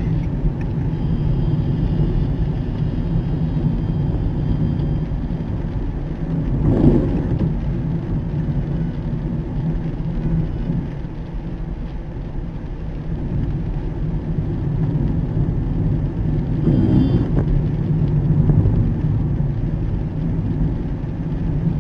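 Car driving on a wet road, heard from inside the cabin: a steady low rumble of engine and tyre noise that swells louder twice, about seven and seventeen seconds in.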